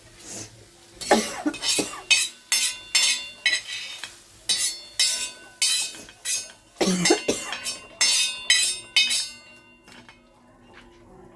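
Metal kitchen utensils striking one another in a quick series of ringing clinks, about two a second, stopping near the end.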